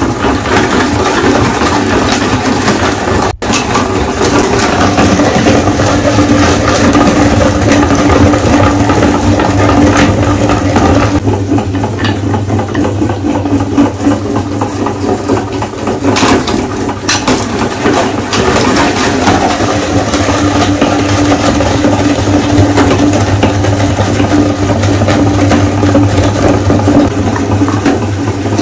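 Electric meat grinder running with a steady motor hum while its auger crushes hard-candy lollipops, the candy cracking and crunching; a brief break about three seconds in.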